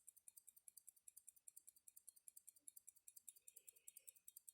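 Zenith calibre 19.5 pocket watch movement ticking, faint, steady and even at about five ticks a second: a strong, regular beat.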